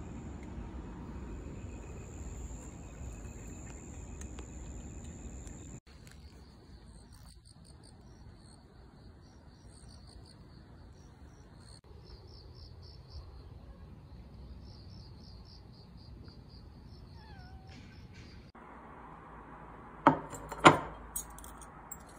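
Crickets and other night insects: first a steady high trill, then, after a cut, rapid pulsed chirping. Near the end, two sharp knocks about half a second apart.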